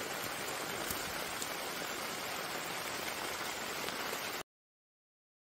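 Steady, even hiss of outdoor background noise, with no distinct events, that cuts off to dead silence about four seconds in.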